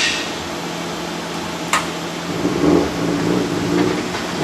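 Steady mechanical hum with a held low tone, and a single sharp click a little under two seconds in.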